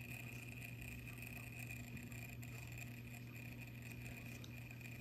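Auto Aqua Smart Stir magnetic stirrer running, spinning the magnetic bead in a test vial of water. It gives a faint, steady low hum with a thin, high, even whine.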